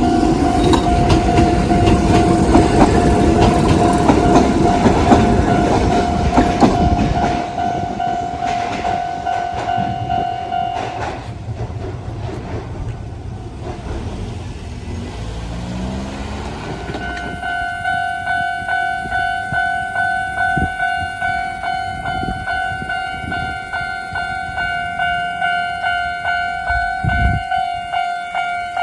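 An electric train runs over a level crossing with its wheels clattering, while the crossing's electronic warning bell rings at a fast tempo. The bell stops about eleven seconds in, a faint rising whine follows, and the fast bell starts ringing again about seventeen seconds in.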